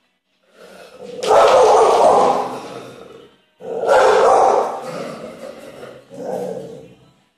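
American Staffordshire terrier barking in fright at a selfie stick, in three loud bouts: two of about two seconds each, then a shorter one near the end.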